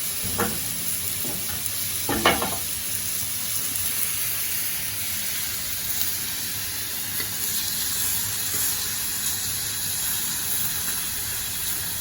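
Steady sizzling from cooking over a small alcohol stove, with a brief louder sound about two seconds in.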